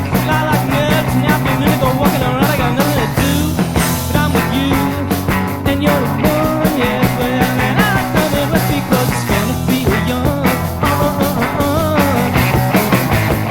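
Punk rock band playing an instrumental passage on a vinyl record: a steady drumbeat under electric guitars, with no singing.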